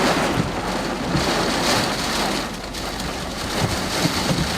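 Heavy rain falling on a car's roof and windshield, heard from inside the vehicle as a steady rushing hiss.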